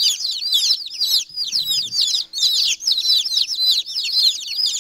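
A brood of newly arrived mixed-breed chicks (Silkie, Cochin, Brahma, Ameraucana and New Hampshire Red) peeping nonstop, many high, downward-sliding cheeps overlapping into a continuous chorus.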